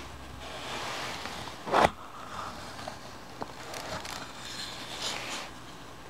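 A light wooden knife box handled and its lid taken off with gloved hands: rubbing and scraping of wood on wood, one sharp wooden knock a little under two seconds in, then lighter taps and scrapes.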